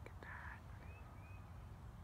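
Two short, faint high chirps, likely from a small bird, over a steady low outdoor rumble, with a couple of light clicks at the start.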